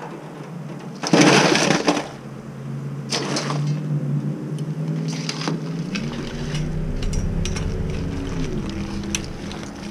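A basketful of boiled crawdads is dumped into an aluminium foil tray, a loud clattering rush of shells about a second in and a shorter one around three seconds. Then a metal skimmer clinks and scrapes in the boiling pot over a low hum that rises and falls in pitch.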